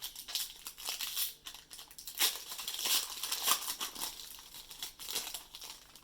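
Plastic-foil wrapper of a hockey card pack crinkling as it is handled and opened, in a run of irregular crackles.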